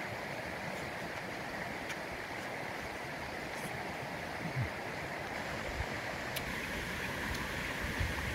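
Steady rushing outdoor background noise with a few faint clicks.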